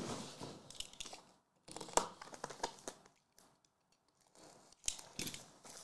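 Plastic trading-card packaging crinkling and tearing, with scattered sharp crackles and clicks as it is handled, and a short quiet spell midway.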